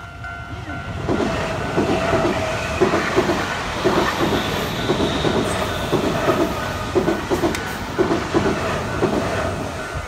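A train passes close by, its wheels clicking over the rail joints in evenly spaced pairs, starting about a second in. A level crossing bell rings steadily behind it.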